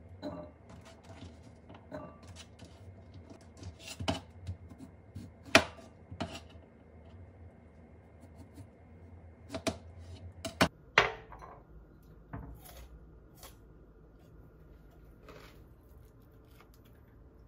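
Kitchen knife cutting a cucumber on a cutting board: irregular knocks as the blade strikes the board, a few of them sharper. The knocks thin out to a few faint ticks for the last few seconds.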